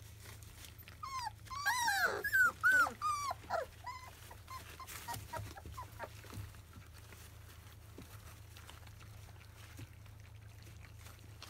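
Labrador retriever puppies, about 25 days old, whining while they crowd a shared food bowl at their first weaning meal: a quick run of short, high-pitched whines rising and falling in pitch about one to four seconds in, then fainter squeaks and scattered clicks.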